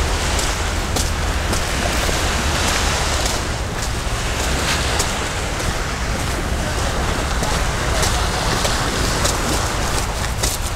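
Steady outdoor wash of wind and sea, with a walker's footsteps ticking about twice a second.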